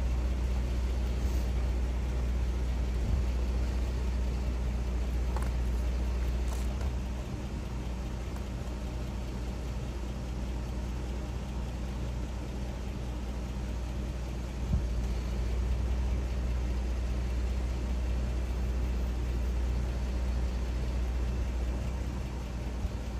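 A motor vehicle's engine idling with a steady low rumble, which drops back for several seconds midway and then returns.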